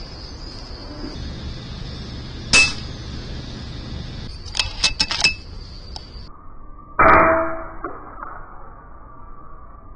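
Crickets trilling steadily. About two and a half seconds in there is a sharp metallic clang, then a quick run of four or five clinks. The trill cuts off abruptly, and a louder, duller impact follows about seven seconds in.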